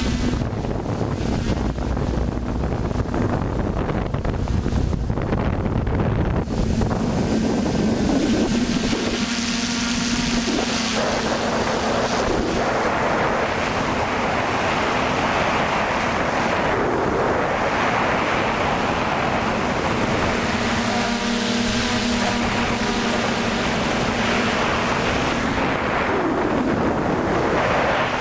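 Quadcopter motors and propellers buzzing steadily in flight, heard from the drone's own onboard camera, with a dense rush of propeller wash over the microphone. The buzz swells and falls a few times as the throttle changes.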